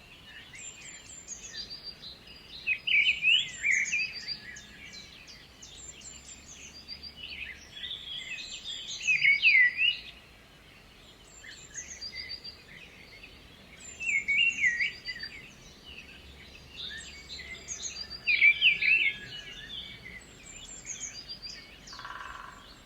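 Outdoor birdsong ambience: several birds chirping and singing, with louder song phrases about every four to five seconds over a faint background hiss. A short steady tone sounds briefly near the end.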